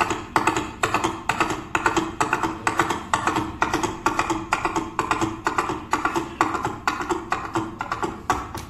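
Foley horse hoofbeats made by striking a hand-held prop on a table, quick hollow clops in a steady galloping rhythm.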